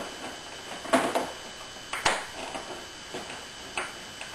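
Several sharp plastic clicks and knocks, the loudest about a second in, from working a plastic push-pin fastener out of a scooter's plastic front body panel.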